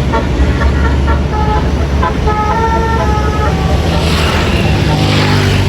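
Telolet multi-tone bus horn playing a quick run of short notes, then a longer held chord ending about three and a half seconds in, over a bus engine running. A rushing noise follows near the end.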